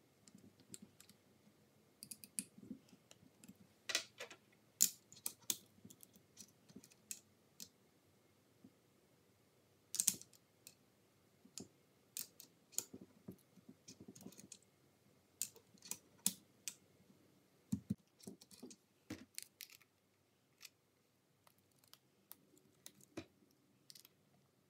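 Small metal clicks, taps and knocks of a Sunwayfoto DDC-50LR lever-release clamp being handled and screwed onto a tripod ball head. They come at irregular times, with a few sharper knocks among them, and thin out near the end.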